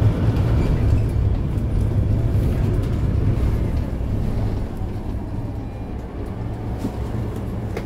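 Mercedes-Benz Citaro C2 hybrid bus's six-cylinder diesel engine idling while the bus stands at a stop, heard from inside the passenger cabin as a steady low hum that eases a little over a few seconds.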